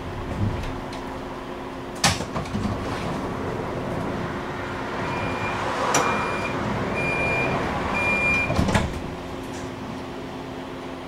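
Tram standing at a stop with its sliding doors working: a sharp clack, then a high door warning beeping four times about a second apart, ending in a knock as the doors close. A steady electrical hum runs underneath.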